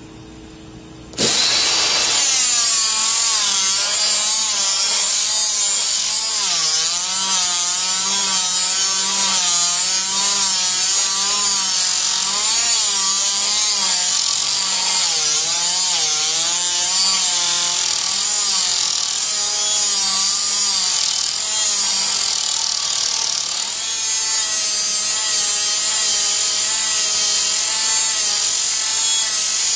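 Dynabrade pneumatic straight die grinder starting about a second in, then running with a loud air hiss and a whine that wavers up and down as its abrasive wheel is pressed against and worked over a curved metal workpiece. The pitch steadies somewhat in the last few seconds.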